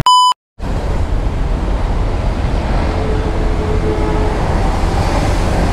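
A short electronic beep, a moment of silence, then steady outdoor rumble by an open railway line: wind buffeting the microphone over distant road traffic.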